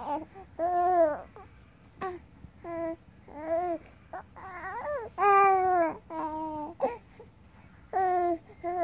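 Two-month-old baby cooing: about ten short, pitched, vowel-like sounds, each rising and falling in pitch, with brief pauses between them.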